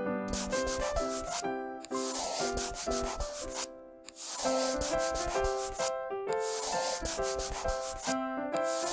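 Marker scribbling rapidly back and forth on paper in quick strokes, in spells of about two seconds with short pauses between them, over a simple plinking children's melody.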